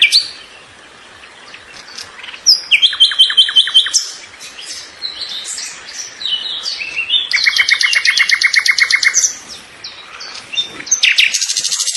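Songbirds chirping and singing, with fast trills of rapidly repeated high notes about 3 s in, from about 7 to 9 s, and again near the end, and assorted shorter chirps between.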